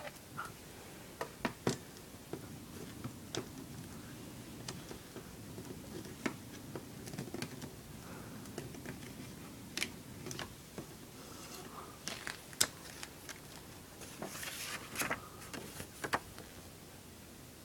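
Plastic CD jewel cases being handled: scattered sharp clicks and taps as the cases are opened and set down, with paper rustling near the end as the fold-out booklet is pulled out and opened.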